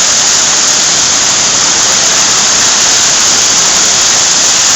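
Heavy hailstorm: a dense, loud, steady hiss of countless hailstones pelting down, with no single strikes standing out.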